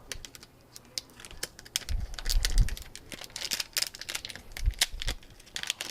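Quick small clicks and taps of hands handling an iPhone 4S and its replacement battery, with a couple of dull low bumps about two and five seconds in.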